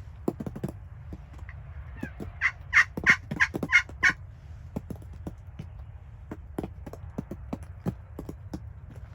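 A wild turkey gobbler gobbling once, a rapid rattling call lasting under two seconds about two and a half seconds in. Faint scattered ticks and taps run underneath.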